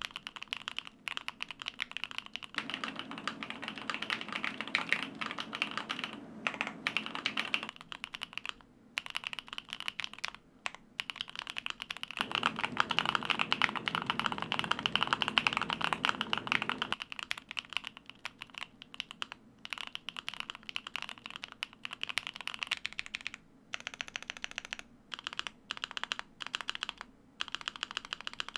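Stock, pre-assembled Luminkey75 75% mechanical keyboard, with an aluminium case and brass weight, being typed on. It gives a deep sound that the typist puts down to PE foam inside. Two spells of fast, dense typing are followed by more broken-up keystrokes with short pauses near the end.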